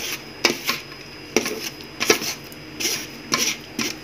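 Steel spoon scraping and clinking against a fine wire-mesh strainer, pressing and gathering fresh milk curds to squeeze out the whey. The strokes come about ten times, irregularly, roughly two a second.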